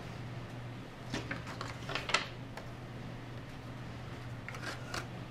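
Plastic model kit parts being handled: a few short clicks and rustles about a second in and again near the end, over a steady low hum.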